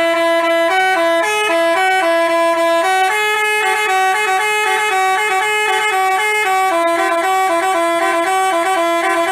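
Basuri 'telolet' multi-tone bus horn playing a quick melody: short notes that step up and down every fraction of a second, two horn tones sounding together.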